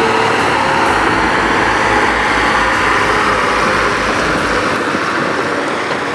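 Fendt tractor pulling a loaded Joskin dump trailer past on gravel: the engine runs steadily under a loud, even rush of tyre and gravel noise, a little quieter near the end.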